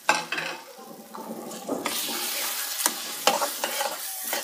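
Steel spoon stirring beef liver in a wet masala in a steel kadai: the spoon knocks and scrapes against the pan over a bubbling sizzle that grows louder about two seconds in.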